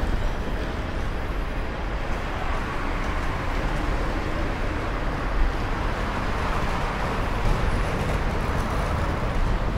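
Steady road traffic noise, a continuous low hum of vehicles.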